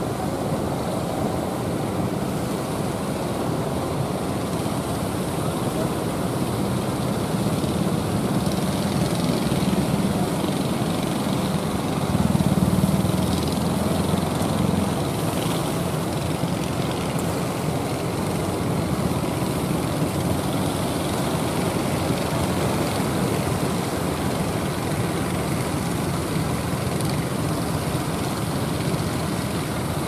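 Small motors of outrigger fishing boats running steadily as the boats head out through rough surf, over a constant wash of waves. The engine drone swells briefly about twelve seconds in.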